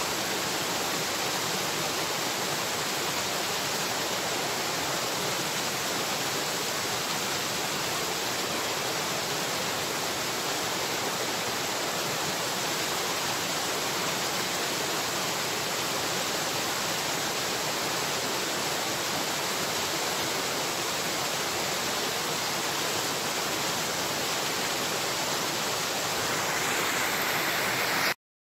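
Steady rushing of flowing water, even and unbroken. It cuts out for a split second just before the end.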